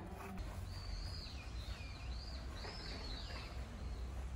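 A bird calling: a run of high chirps that swoop down and back up in pitch, over a steady low rumble of outdoor background noise.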